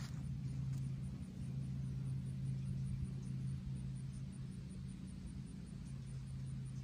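A steady low hum with a faint background hiss, even throughout.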